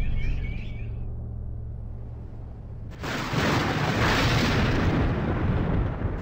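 A low steady drone, then about three seconds in a sudden loud thunderclap that rolls on as a long rumble of thunder from a storm.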